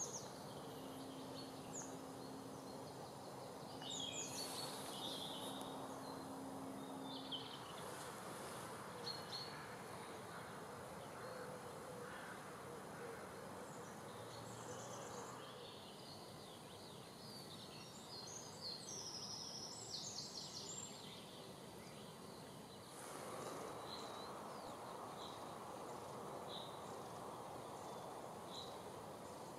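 Outdoor field ambience: scattered short bird chirps and calls over a steady background noise, with a low steady hum that stops about seven seconds in. The background shifts in level a few times.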